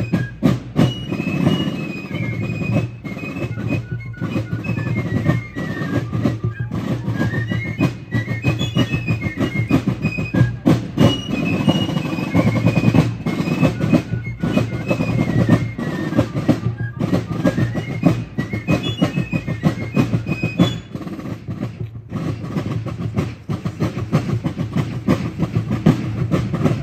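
Fife and drum corps playing a march: fifes carry a high melody over rapid drum strokes. The fifes drop out about six seconds before the end while the drums keep playing.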